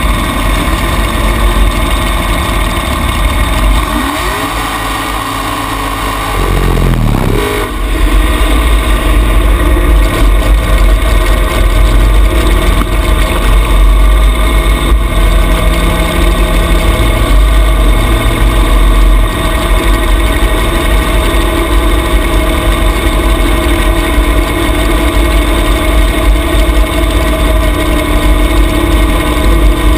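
Junior dragster's single-cylinder engine running, heard close from a camera mounted on the car. It eases off about four seconds in, its pitch swings up and back down over the next few seconds, then it runs steady and loud.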